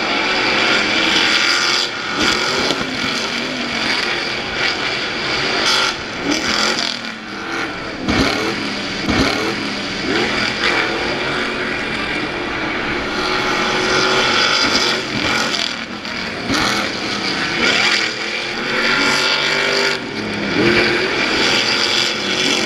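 Off-road race trucks' engines revving hard and passing by, their pitch rising and falling again and again as they accelerate and lift off. Two heavy thumps come about eight and nine seconds in.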